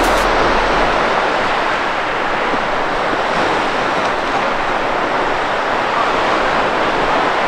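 Steady rush of surf breaking on a sandy beach, with some wind in it.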